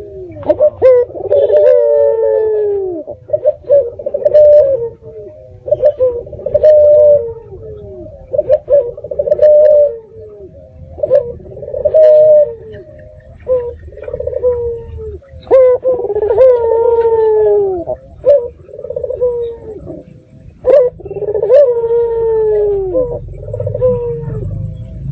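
Puter (Barbary dove), a red-eyed local bird, cooing over and over in a dense series of low calls, some sliding down in pitch. This is the vigorous calling used as a lure to get other puter doves to answer.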